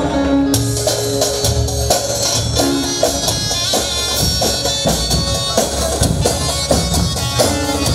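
Davul drums and zurna playing loud folk dance music: a steady pounding drum beat under a shrill, reedy wind melody that comes in about half a second in.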